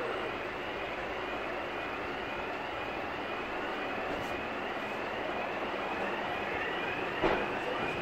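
Fire engine siren in a fast yelp: short rising sweeps repeating about twice a second, over a steady rush of traffic noise. A brief knock near the end.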